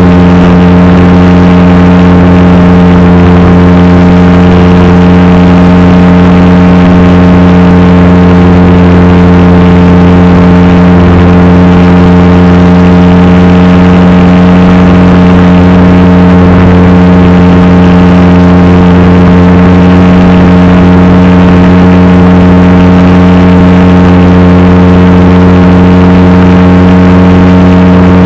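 RC model Cessna's engine and propeller droning very loudly at steady full-flight power, its pitch hardly changing, picked up by the onboard camera's microphone.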